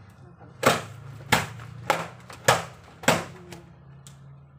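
A heavy wet blanket being slapped down hard during hand laundry: five loud, sharp slaps about half a second apart, then two fainter ones.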